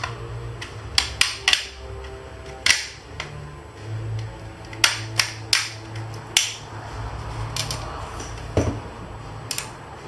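Plastic clips of a Samsung Galaxy Tab 3 7.0's back cover snapping loose as a plastic pry tool works along the seam: about a dozen sharp clicks at irregular intervals.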